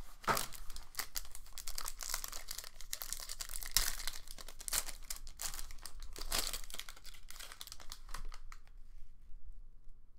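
Trading-card pack wrapper crinkling and tearing, with cards rustling and sliding against each other in the hands as a pack is opened and sorted. The rustling thins out to near quiet about two seconds before the end.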